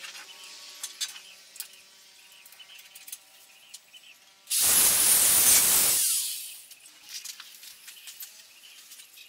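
A short arc weld on a steel-tube frame: about a second and a half of loud, even hiss, starting and stopping abruptly, a tack weld. Before it, light clicks and knocks of metal being handled over a faint hum.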